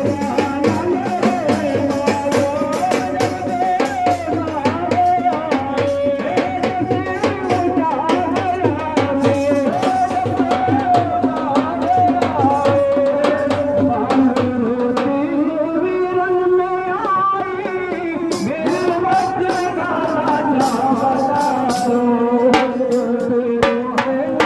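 Men singing a Muharram devotional song into a microphone over a loudspeaker, with drums beating along in a steady rhythm.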